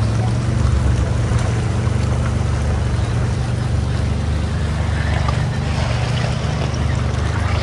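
Can-Am Defender side-by-side's engine running at a steady low drone while under way.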